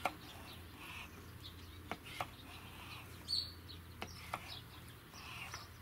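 Kitchen knife cutting smoked pork loin into strips on a wooden cutting board, the blade tapping the board a few times with short sharp knocks. Birds chirp now and then in the background.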